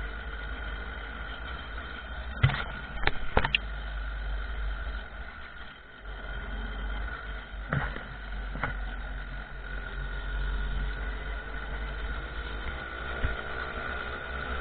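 Small two-stroke moped engine running steadily while riding, with wind rumble on the microphone. A few sharp knocks come about two and a half to three and a half seconds in and again around eight seconds.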